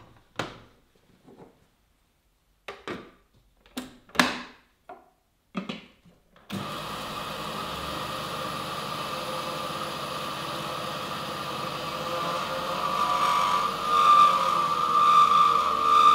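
A few short knocks and clicks as the stainless steel jug is handled and seated on a kitchen food processor. About six seconds in, the motor starts and runs steadily, grinding cocoa nibs, with a whine that grows louder over the last few seconds.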